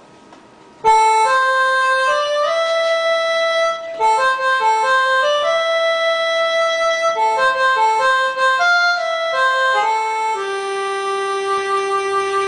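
Electronic keyboard playing a single-line melody in held, sustained notes, starting suddenly about a second in.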